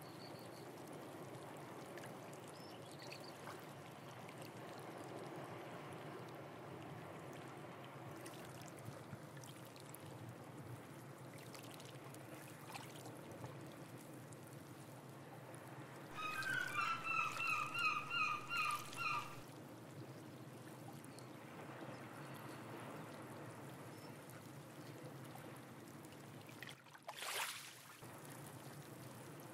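Steady, gentle wash and trickle of seawater among shore rocks. About halfway through, a bird calls a quick run of about nine short repeated notes, the loudest sound. Near the end there is one brief swish.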